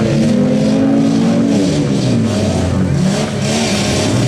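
Several demolition derby cars' engines revving together, their pitches rising and falling as the drivers accelerate and back off.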